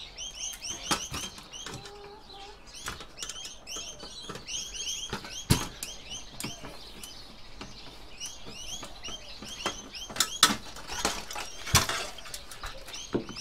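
Birds chirping over and over in the background, with scattered sharp clicks and knocks of hand tools and metal parts as a circuit board is unfastened. The loudest knocks come about five and a half seconds in and twice near the end.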